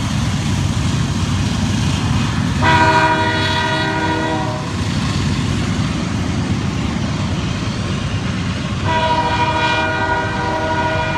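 CN freight train's cars rolling past with a steady low rumble. A multi-chime air horn sounds two long blasts over it: one about two and a half seconds in lasting about two seconds, and another starting near nine seconds in.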